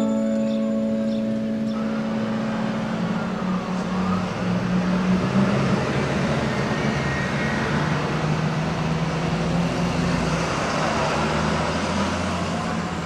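City street traffic: a steady rush of vehicles with a low engine hum that shifts slowly in pitch. A piano note fades out at the start.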